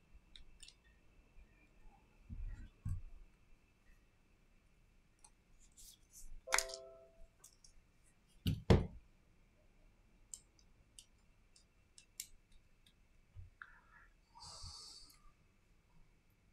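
Quiet, scattered small clicks and taps of metal tweezers and plastic and metal parts as a Redmi Note 9 Pro is handled apart. A few knocks stand out, the loudest about eight and a half seconds in, and a short scrape comes near the end.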